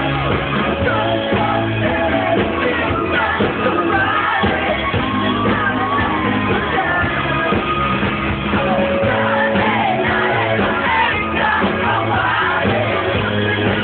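Rock band playing live, with a lead vocal singing over keyboards and the rest of the band.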